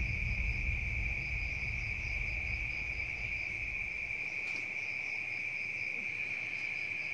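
Night insects, crickets, trilling in one steady, unbroken high tone, with a second, higher-pitched insect pulsing about five times a second in spells.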